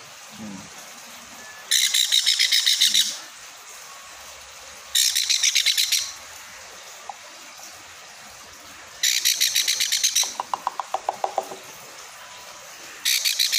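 Baby sun conure chick giving food-begging calls: four bursts of rapid, pulsing high-pitched chirps, each lasting about a second, a few seconds apart, with a lower, softer run of pulses after the third burst.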